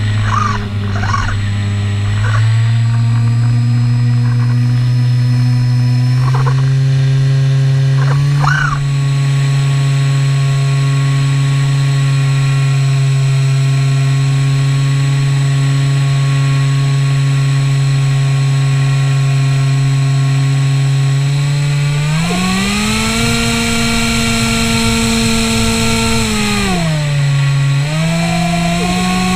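Electric motor and propeller of a Skywalker 1900mm RC plane droning steadily in flight. About three-quarters through it throttles up to a higher pitch, drops back briefly near the end, then rises again.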